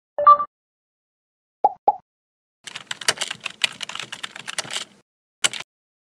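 Animation sound effects: a short electronic blip, two quick pops, then about two seconds of rapid computer-keyboard typing, ending with a single separate click.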